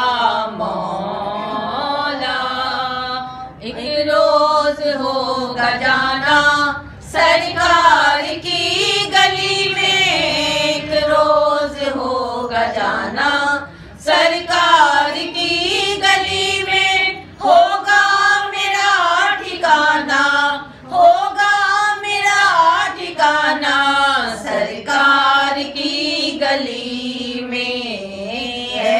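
Two women singing an Islamic devotional song together, unaccompanied, in long held, melismatic phrases.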